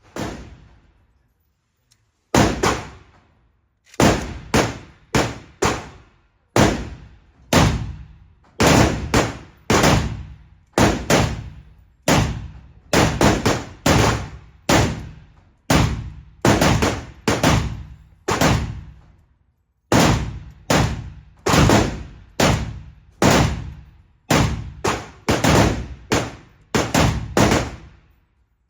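Full-size Romanian Draco AK pistol firing 7.62×39 semi-automatic: one shot at the start, then after a short pause a long string of single shots and quick doubles, up to about three a second, each a sharp crack with a brief echo.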